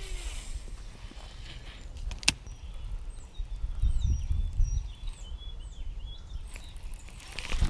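Outdoor pond-bank ambience: wind rumbling on the microphone, a single sharp click about two seconds in, and a few short high bird chirps near the end.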